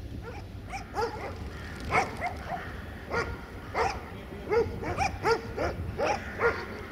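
A dog barking over and over, about two barks a second, over a low steady rumble.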